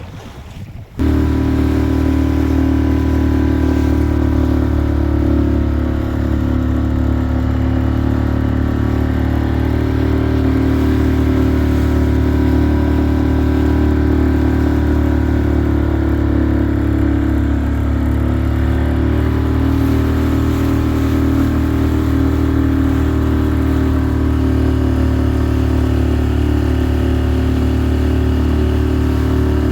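A small boat's engine running steadily at a constant speed. It cuts in abruptly about a second in, loud and droning.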